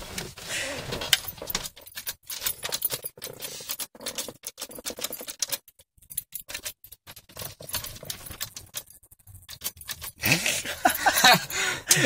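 Car keys jangling and clicking in the ignition lock of a 1994 Acura CL as the key is wiggled and turned in a faulty ignition switch: a rapid, uneven run of small metallic clicks and rattles. No engine sound.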